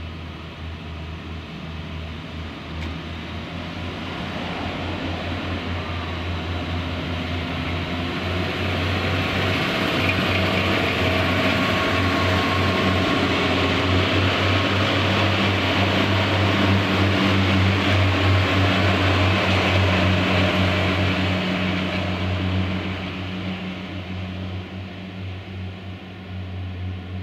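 Diesel multiple unit pulling out of a station, its underfloor diesel engines running with a steady low hum. It grows louder as the train draws past, at its loudest for several seconds, then eases off as it moves away.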